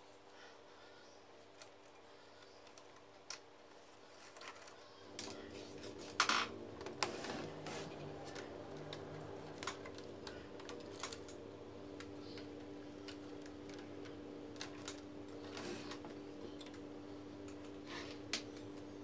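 Scattered light clicks and clacks of gloved hands handling the metal frame and plastic parts of an HP Color LaserJet printer during disassembly, loudest about six seconds in. A steady low hum comes in about five seconds in.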